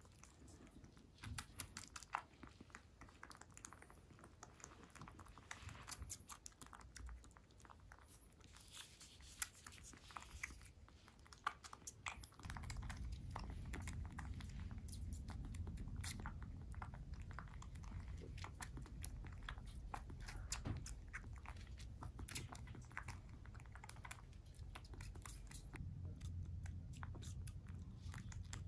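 Young kitten suckling milk from a feeding syringe, its mouth making many small wet clicks and smacks. About twelve seconds in, a low steady rumble comes in under the clicks and carries on.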